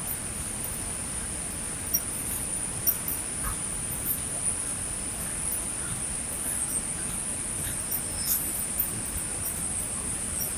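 A steady, high-pitched chirring of insects in the surrounding vegetation, with a few faint taps scattered through it.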